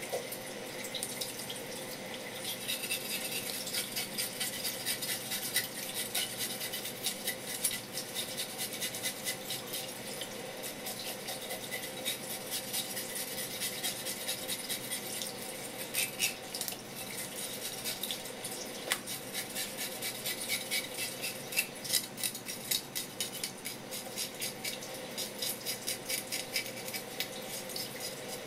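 Tap water running steadily onto a wooden cutting board and a whole red gurnard, with many quick small scratches and ticks of a kitchen knife blade scraping off the fish's tiny scales.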